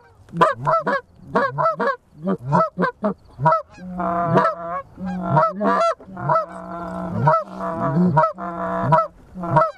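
Goose honking and clucking, many short calls in rapid succession. Longer drawn-out honks overlap from about four seconds in until near the end.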